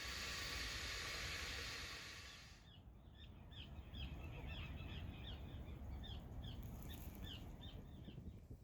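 A steady hiss breaks off abruptly about two and a half seconds in. Then a small bird calls in a run of short, quick chirps, about three a second, over a low rumble of wind on the microphone.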